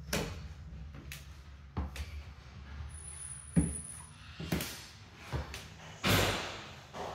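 Irregular knocks and thumps of someone walking across a floor while handling a phone, about one a second, with a louder swishing thud about six seconds in.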